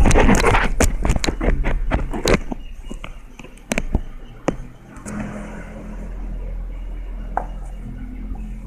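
Crackling, clicking handling noise of a plastic toothpaste tube and fingers rubbing close to the microphone, dense for the first two and a half seconds, then only a few scattered clicks over a steady low hum.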